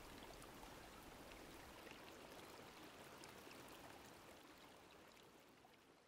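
Near silence: a faint, steady background hiss that fades out over the last second or two.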